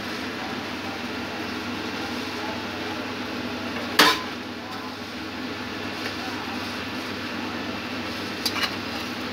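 Brinjal masala sizzling steadily in an aluminium pot, with one sharp metallic clink about four seconds in and two lighter clinks near the end.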